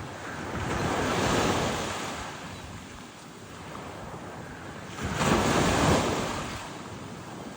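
Waves washing onto the beach in two surges, the second starting suddenly about five seconds in and louder, with wind buffeting the microphone.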